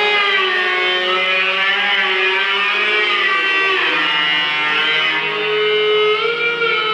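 Live band with electric guitars playing long, held notes that slide slowly up and down in pitch, layered into a steady wash of sound.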